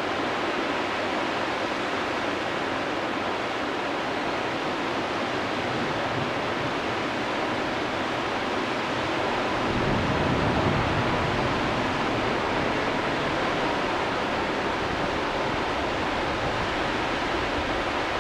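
Whitewater river rapids rushing steadily. About halfway through, a low rumble of wind on the microphone joins in.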